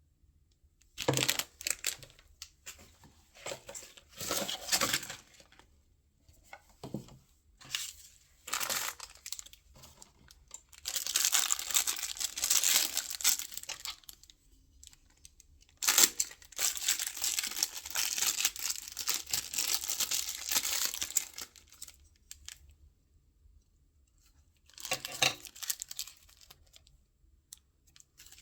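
Blind box packaging being torn open and crinkled by hand, in several separate bouts of rustling and tearing with short pauses between. The longest bouts come in the middle and the second half.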